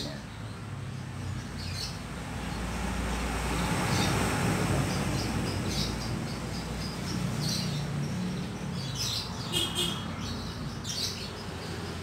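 Canaries chirping in short, high calls, scattered at first and coming more thickly near the end, over a rushing noise that swells in the middle.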